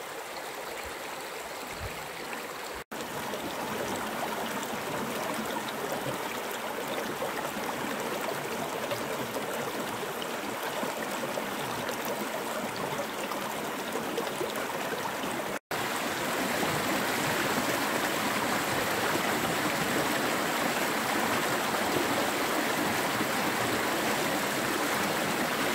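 Fast stream rushing over rocks and stones in a shallow rocky bed, a steady water noise. It drops out for an instant twice, about three seconds in and about halfway through, and is louder after each break.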